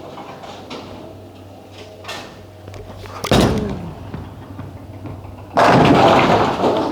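Bowling ball thrown down the lane: it lands on the lane with a sharp thud a little over three seconds in, and about two seconds later crashes into the pins, a loud clatter that fades out near the end.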